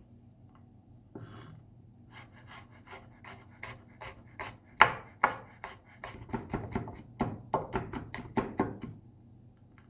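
Kitchen knife mincing garlic cloves on a cutting board: a short scrape, then a run of quick chopping strikes that come faster in the second half and stop about a second before the end.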